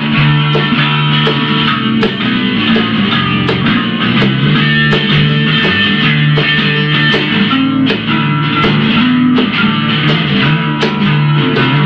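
Rock band playing an instrumental passage: guitar chords over a steady drum beat, with no singing.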